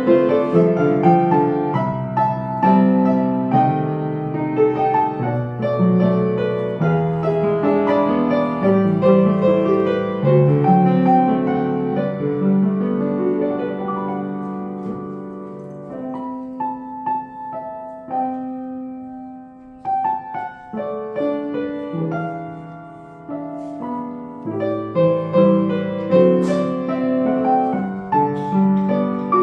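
Piano music: busy, flowing playing that thins to a few held notes and grows quieter a little past halfway, then fills out again near the end.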